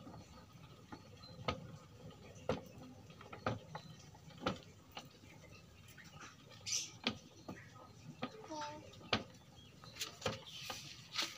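Old, rusty rice thresher's wire-toothed drum being turned by hand, giving a sharp click roughly once a second as it spins.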